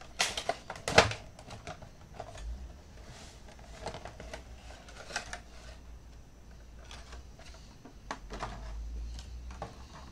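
A cardboard Funko Pop box being handled and opened: irregular scrapes, taps and rustles of the cardboard and plastic packaging. The loudest clatter comes in the first second.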